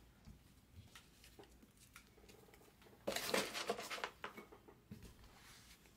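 Quiet handling of trading card packs: light taps and clicks, then, about three seconds in, a crinkling rustle of a foil card-pack wrapper for about a second, followed by a few more taps.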